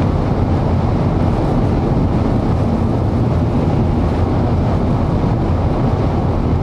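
Strong wind and the noise of a moving car, a loud, steady roar with no breaks, heard from inside the vehicle as the storm's rear flank downdraft winds arrive.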